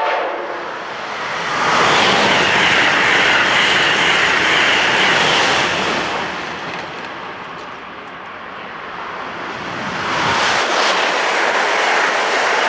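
Amtrak Acela Express trains passing close by: a loud, steady rush of wheels on the rails that swells, eases about midway, and builds again near the end.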